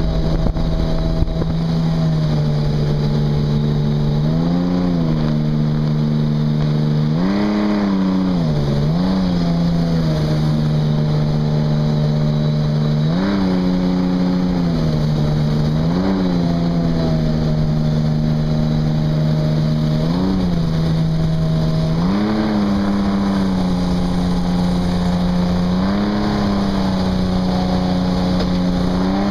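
Jet boat engine running steadily at speed, its revs rising briefly and dropping back about eight times.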